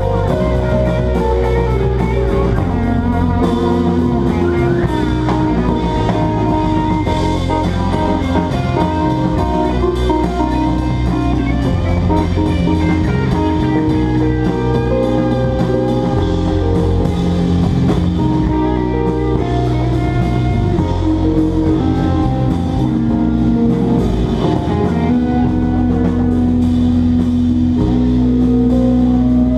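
Live band playing: drum kit, electric guitar and keyboard, with a horn played over them.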